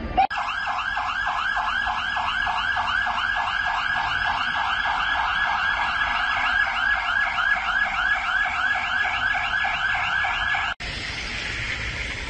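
Electronic siren warbling rapidly, about four sweeps a second, and cutting off abruptly near the end. A steady rushing noise takes over after the cut.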